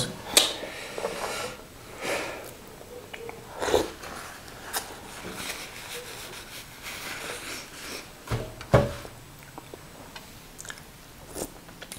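Scattered quiet nose and mouth sounds: sniffling and a tissue wiped across the face, with chewing and fingers working konkonte in peanut soup. A couple of louder short noises stand out, near four seconds and again about eight and a half seconds in.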